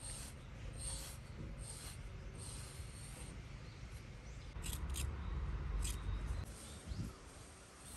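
Deshedding brush raking through a Shiba Inu's thick coat, a scratchy stroke about every second for the first few seconds. Around the middle the strokes give way to low handling bumps and a few sharp clicks.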